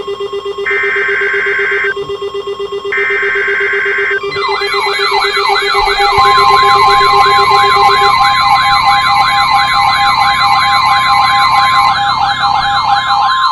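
Emergency Alert System signalling on NOAA Weather Radio: two raspy digital SAME header data bursts about a second apart, then from about four seconds in a loud, fast-warbling siren-like alert tone. About two seconds later a steady high single tone joins it, the alert signal that introduces the next blizzard warning.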